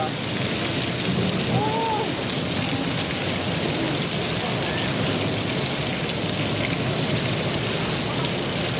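Steady, even hiss of falling water, rain-like, with no break.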